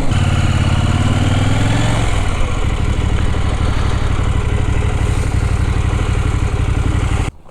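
KTM 790 Adventure's parallel-twin engine through an aftermarket Wings exhaust, rising in pitch for about two seconds as the bike accelerates, then running steadily under way. The sound cuts off suddenly near the end.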